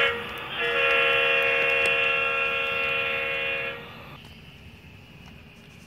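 Diesel locomotive horn sound from a sound-equipped HO-scale model train: a brief toot, then one long steady blast of about three seconds that cuts off suddenly.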